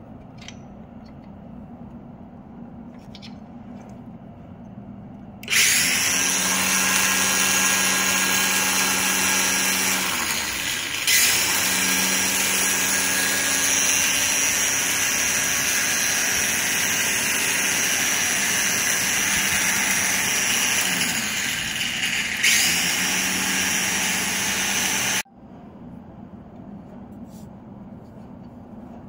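Black & Decker cordless string trimmer's electric motor starting up about five seconds in and running with a steady whine, slowing and picking back up twice, then cutting off suddenly near the end.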